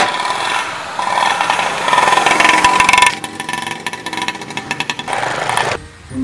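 Small three-wheeled auto-rickshaw engine revving hard as the vehicle is driven tipped up on two wheels, turning into a fast rattling pulse partway through before dying away near the end.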